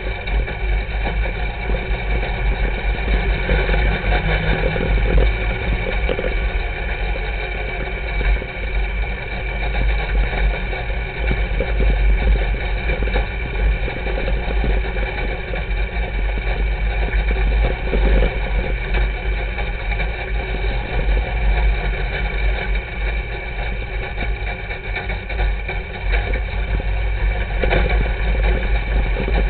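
Sport modified dirt-track race car's V8 engine running steadily at low speed, heard from inside the cockpit.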